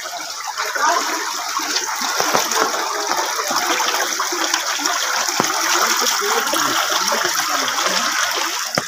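Muddy floodwater rushing through a flooded lane and around sandbags, a loud, steady rush of water.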